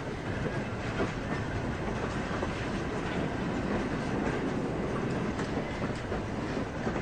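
A train running past: a steady, even noise of rolling wheels and rail traffic.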